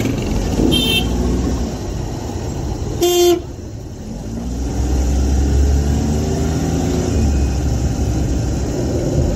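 Street traffic: vehicle engines rumbling, with short high horn toots near the start and one loud horn blast about three seconds in.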